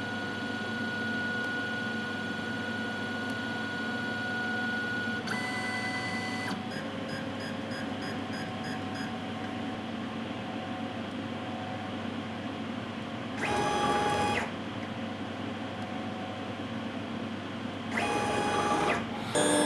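Laser cutter running: a steady mechanical hum with a thin whine, broken three times by short, louder whirring spells as the machine moves.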